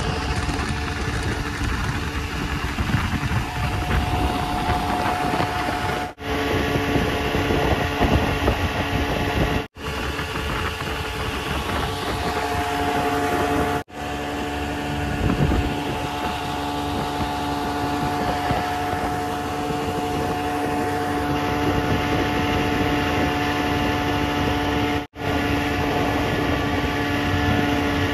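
Motorboat engine running steadily as the boat tows a tube, a steady hum over the rush of wind and water, broken by a few brief gaps.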